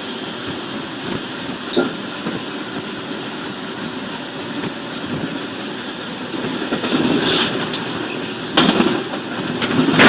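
Train running on the rails, a steady rumble with occasional sharp clanks, growing louder in the last few seconds. A sudden loud clatter comes about a second and a half before the end.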